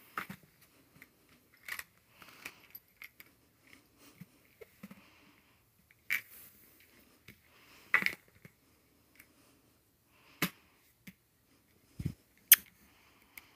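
A clear plastic street-lamp cover being rolled and turned by hand over a blanket with a cat inside: scattered short scrapes, rubs and knocks of plastic against hand and fabric. Near the end there is a low thump and then a sharp tap, the loudest sound.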